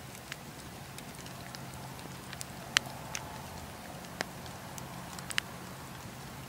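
Wood campfire crackling, with irregular sharp pops from the burning logs, the loudest a little under three seconds in, over a steady low hum.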